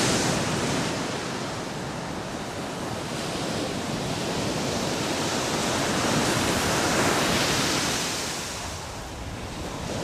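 Sea waves washing up onto a sandy beach: a steady rush of surf that swells about seven seconds in and eases off near the end.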